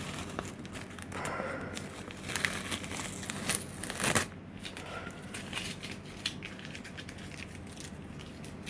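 Masking tape being peeled and crumpled off a thin Lexan plastic car body shell: an irregular crinkling and tearing rustle, with sharper crackles about two and a half, three and a half and four seconds in, the last the loudest.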